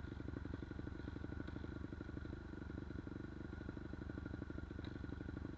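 Dirt bike engines idling, a steady rapid putter with no revving.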